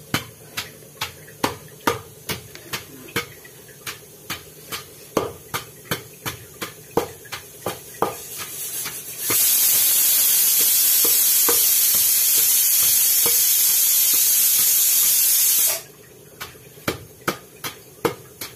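Long wooden pestle pounding raw cucumber chutney in a stone mortar: dull knocks at about two strokes a second. About nine seconds in, a loud steady hiss starts, drowns the pounding for about six seconds, then cuts off suddenly, and the knocks carry on.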